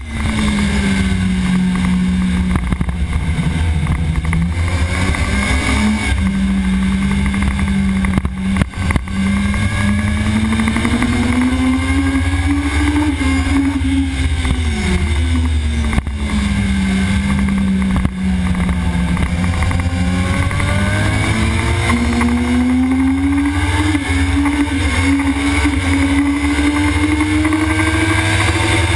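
Sport motorcycle engine at high revs heard from on board, its note climbing with the throttle and dropping sharply a few times at gearchanges and off-throttle moments. Heavy wind rush and rumble sit underneath, made worse by a poorly fitted camera mount.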